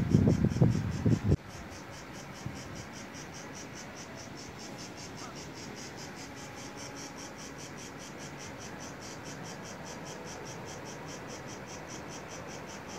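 Insects chirping in the trees, a steady high-pitched pulse at about five beats a second. A louder low, irregular noise covers the first second and a half before breaking off.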